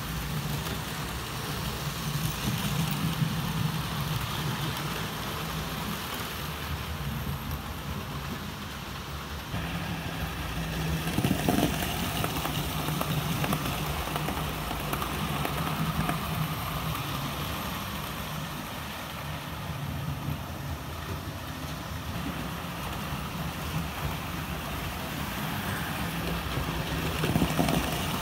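OO gauge model trains running on the layout: a steady motor hum and wheel rumble on the track as a locomotive and its rake of coaches pass close by, a little louder about a third of the way in and near the end.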